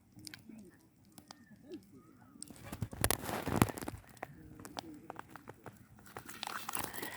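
Wood campfire crackling with scattered sharp pops, and a louder stretch of rustling and crunching about three seconds in. Low bird calls sound in the first couple of seconds.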